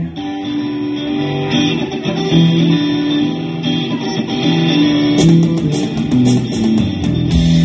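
A live rock band playing, with electric guitar to the fore. The drums mostly drop out at first, then cymbals come back in about five seconds in and the full low end returns near the end.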